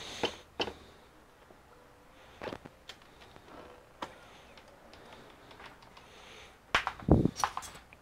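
Scattered clicks and knocks from handling an opened all-in-one computer's metal chassis and loose metal brackets. A quick run of louder knocks comes about seven seconds in.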